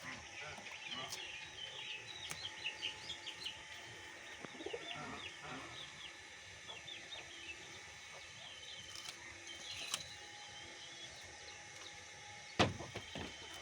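Small birds chirping, many quick high chirps in a steady chatter, with a lower call about five seconds in. A sharp knock sounds near the end.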